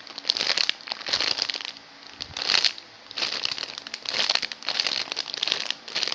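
Thin plastic packaging bag crinkling in repeated bouts as it is handled and squeezed around a foam squishy toy.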